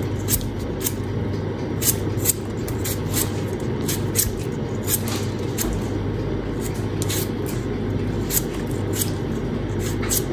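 Kitchen knife shaving the skin off a potato by hand: short scraping strokes, about two a second and unevenly spaced, over a steady low hum.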